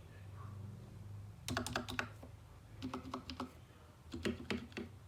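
Typing in short bursts on a Royal Kludge RKG68 mechanical keyboard with stock, unlubed Akko CS Rose Red linear switches and stock keycaps. There are three quick runs of keystrokes, about four or five clacks each, starting around one and a half seconds in.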